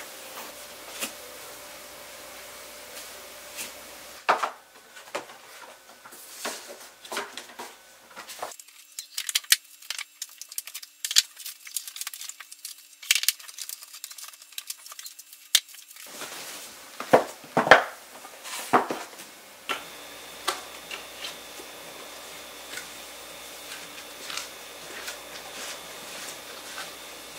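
Household handling sounds: scattered light taps, clacks and rustles, densest in the middle as picture books are picked up off a play mat and stacked onto a bookshelf, with a few sharper knocks a little later.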